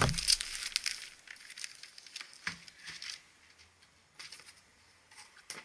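Bubble wrap and plastic packaging crinkling and rustling as it is handled, busiest in the first second and then in scattered crackles, with a few soft knocks.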